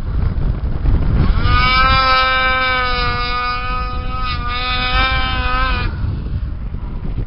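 Ski-Doo MX Z snowmobile engine running at speed as it passes: a high engine whine rises in pitch just over a second in, holds nearly steady, and stops about six seconds in, over a constant low rumble.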